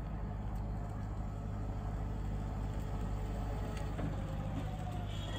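A vehicle running, a steady low rumble that holds even throughout.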